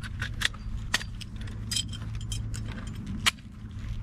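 Clicks and small rattles of a holster being handled and fitted at the waistband, with one sharp snap about three seconds in.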